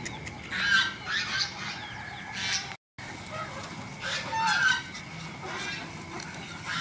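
Domestic poultry in a pen calling, short calls coming in bouts every second or so. The sound cuts out for a split second just before halfway.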